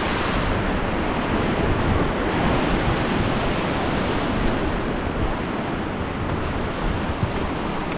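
Rushing river water of the Beas rapids, a steady loud roar of churning water, with wind buffeting the microphone.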